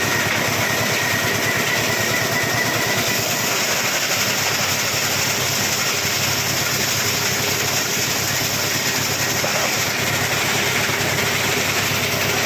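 A 24-inch plastic scrap grinder running steadily with a loud, even mechanical noise.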